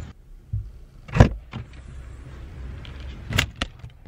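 Camera being handled and moved: a few sharp knocks and bumps, the loudest about a second in and a close pair near the end, with rubbing noises over a steady low rumble.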